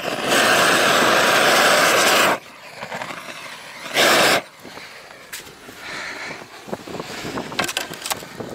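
Propane roofing torch firing on torch-on bitumen felt: a steady rushing blast of about two seconds that stops abruptly, then a second short burst of about half a second some four seconds in.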